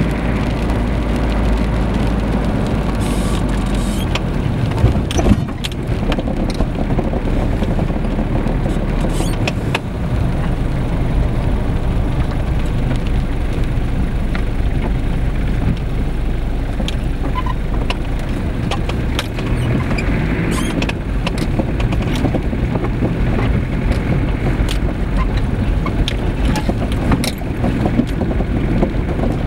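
Inside a slowly moving car: steady engine and tyre rumble, with scattered short knocks and clicks and a sharper knock about five seconds in. Partway through, the tyres move from asphalt onto a rough, unpaved dirt roadbed.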